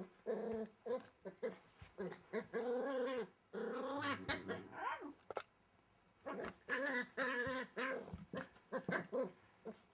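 Welsh Terrier puppy growling in a string of short bouts while playing, with a brief pause about halfway through.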